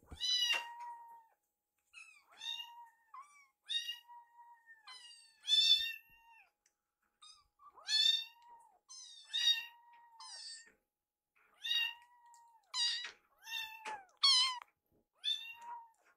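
Young kitten meows: short, high-pitched calls repeated about once a second, some running into one another.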